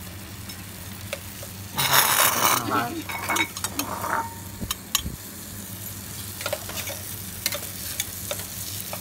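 Sausages frying with a steady sizzle in a nonstick pan on a portable gas stove, with forks and spoons clicking and scraping against the pan as the pieces are turned. About two seconds in, a louder burst of sizzling comes as sliced ham goes into the pan.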